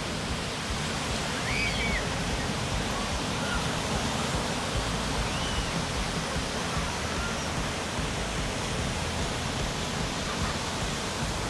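Steady rushing of flowing water, even and unbroken, with a few short faint high chirps about a second and a half in and again around five seconds.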